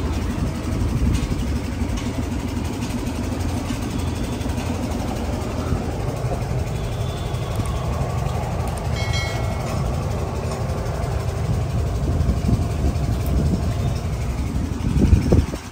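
A steady low engine rumble, like a diesel idling nearby, with a brief higher tone about nine seconds in.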